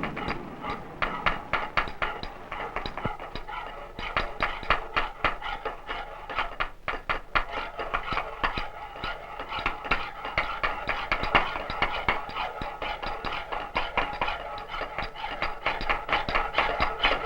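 Rapid, uneven knocking and clicking, several sharp strokes a second, over a faint steady hum.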